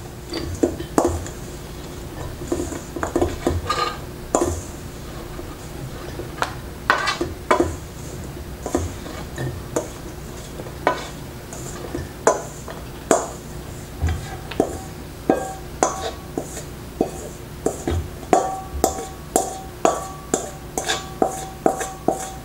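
Stainless steel mixing bowl knocking and clinking as a dry mixture of ginger slices and jujubes is tipped and shaken from it into a glass jar. The knocks turn into a fairly even series of about one and a half a second in the second half, each with a short metallic ring.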